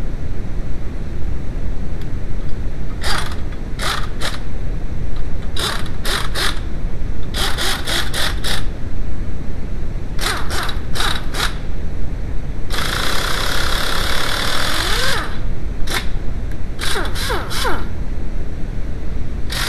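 Slide hammer on a hub puller bolted to the front wheel hub: sharp metal knocks in quick clusters of three to five, with a few seconds of rasping noise about two-thirds through, over a steady low rumble.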